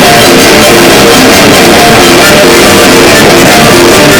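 Loud instrumental rock music led by guitar, with no vocals.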